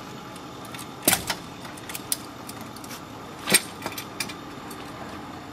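Sharp metallic clinks and jangles, about six spread over a few seconds, from a tow truck's wheel-lift strap and its metal hook being handled at a car's front wheel.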